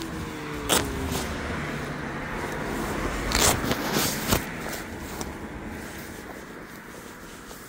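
Electric scooter under way: its motor whine falls in pitch and fades as it slows, over wind and road noise on the microphone. There are a few sharp knocks, one about a second in and several around three to four seconds in, and the noise eases off toward the end.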